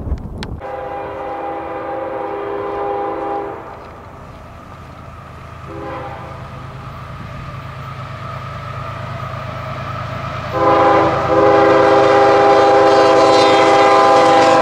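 CSX diesel freight locomotive's air horn sounding for a grade crossing: a long blast, a short one about six seconds in, then a loud long blast from about ten seconds as the train comes up. Under it runs the low rumble of the approaching locomotive, growing louder.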